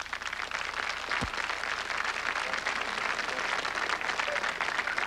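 Audience applauding steadily, a dense crackle of many hands clapping, with a brief low thump about a second in.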